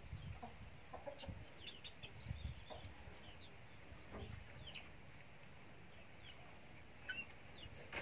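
Faint clucks and short high chirps from chickens, scattered through, with soft low rustling in the first half.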